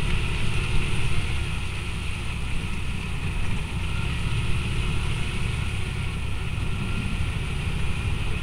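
Engine of a side-by-side ATV running steadily as it drives along a dirt road, with a constant low rumble.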